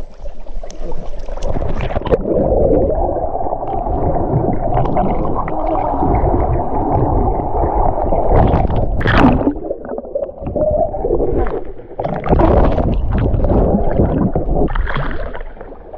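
Muffled underwater churning and bubbling of pool water stirred by a swimmer's kicking legs, heard through an action camera held under the surface. A sharper burst comes about nine seconds in.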